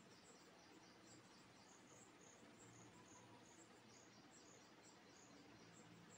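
Near silence, with faint high-pitched chirping in the background, a few short chirps a second.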